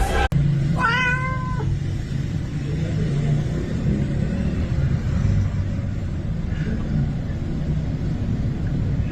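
A cat meows once, about a second in, with a fainter short call later, over a steady low rumble.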